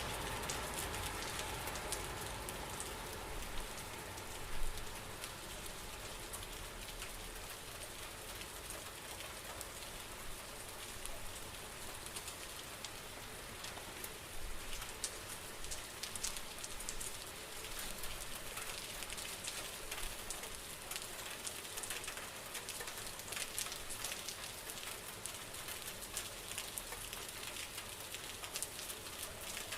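Steady rainfall: an even hiss of rain with many separate drop hits on a surface. A single louder knock comes about four and a half seconds in.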